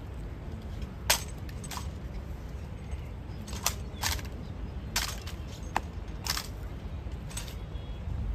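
Sharp clacks from an honor guard's drill on stone paving, coming singly and in pairs about eight times at irregular intervals, over a low steady rumble.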